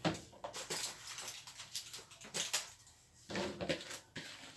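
Faint, intermittent rustling and scraping of hands scooping chopped vegetables out of a plastic mixing bowl.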